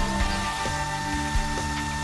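Background music with steady held notes and a recurring low beat.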